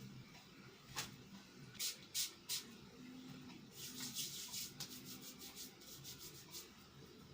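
Rubbing and rustling handling noises: a single knock, then three short scratchy rustles, then a run of quick rubbing strokes.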